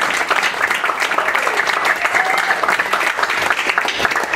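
Audience applauding at the end of a live song, with a few scattered whoops from the crowd.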